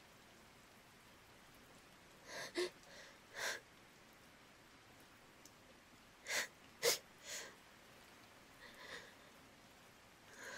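A woman sniffling tearfully with short, sharp breaths, close to the microphone: two clusters of three sniffs about four seconds apart, then fainter breaths near the end.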